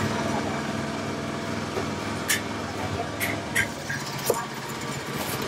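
Busy outdoor market ambience dominated by a steady engine hum, with a few sharp clicks in the second half.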